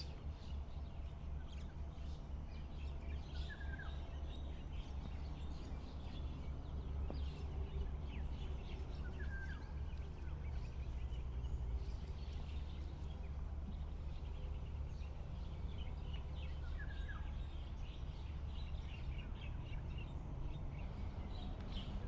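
Wild birds chirping and calling, with many short high chirps throughout and one slurred call heard three times, over a steady low rumble.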